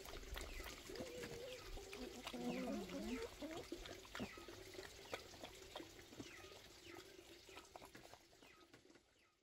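A dog lapping liquid from a metal bowl, with small birds chirping over and over in the background and a low wavering animal call between about one and three seconds in; the sound fades out near the end.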